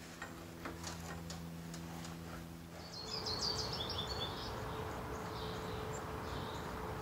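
Small clicks and rustles of electrical wire being handled and fed through a wall hole, over a steady electrical hum. About three seconds in this gives way to outdoor ambience, with a bird chirping a quick run of high notes and a few fainter chirps after.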